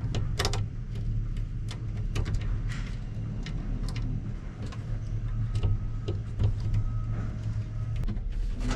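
Clicks and knocks of a tractor cab door's handle and latch being worked, over a steady low hum.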